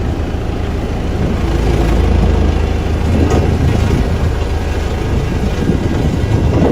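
Heavy diesel construction machinery running with a steady low rumble, with a single clank about three seconds in.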